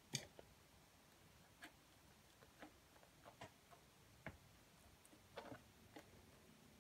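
Irregular light clicks and taps from a kitten's paws and claws on a woven floor mat as it plays, about ten in all, the sharpest just as it begins.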